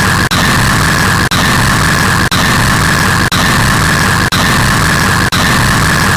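Very loud, harsh static-like noise with a low rumble and a bright hiss, cutting out for a split second about once a second.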